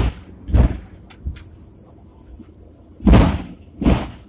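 Hong Kong double-deck tram running along, with two pairs of short, heavy clunks: one pair at the start and another about three seconds in.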